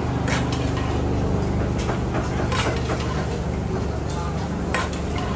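Street-food stall ambience: a steady low mechanical hum, with a few sharp, irregular clatters of kitchen utensils and pots.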